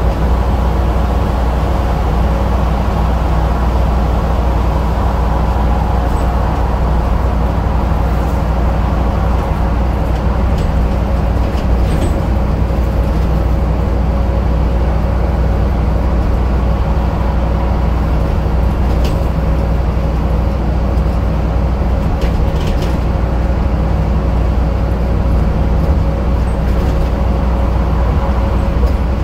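Scania N230UD Enviro 400 double-decker bus's five-cylinder diesel running steadily, with a constant whine over the engine drone and a few light clicks.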